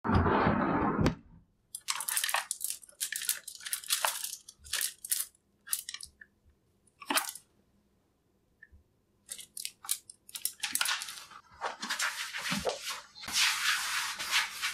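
Clothes rustling and plastic hangers scraping and clacking as shirts on hangers are pushed along a closet rail and pulled out, in a string of short, irregular bursts. A louder rush of noise fills the first second.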